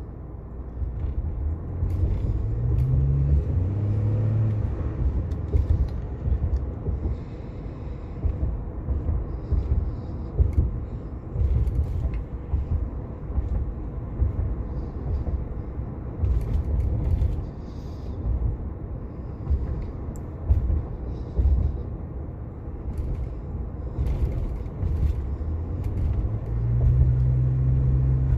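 Turbocharged Ford F-150 pickup driving: a steady low engine and road rumble, with the engine's pitch rising under acceleration a few seconds in and again near the end.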